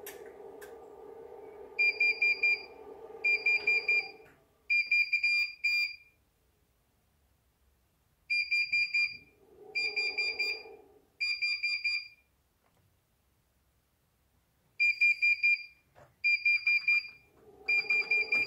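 Bosch Serie 4 washing machine's beeper sounding its error alarm for code E:20: three sets of three fast-pulsing high beeps, with a pause of a few seconds between sets. A steady low hum runs under the first few seconds, returns briefly about ten seconds in and starts again near the end.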